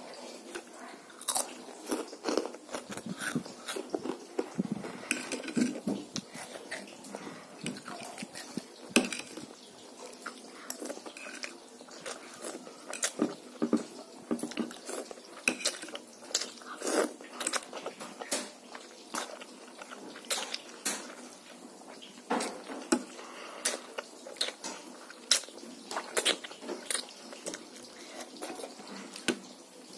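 Close-up chewing and eating sounds as a child eats spicy noodles, with many short, irregular clicks of a metal fork against the plate.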